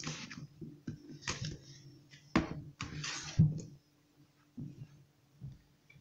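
Plastic clicks and rustles from handling the detergent bottles and dosing cap, a handful of short sounds with the loudest about three seconds in and a few fainter ones near the end, over a faint steady hum.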